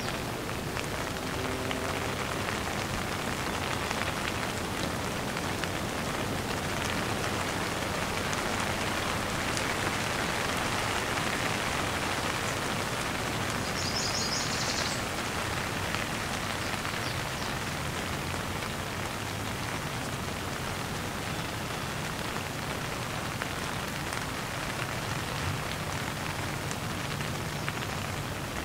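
Heavy rain falling steadily in a dense, even downpour.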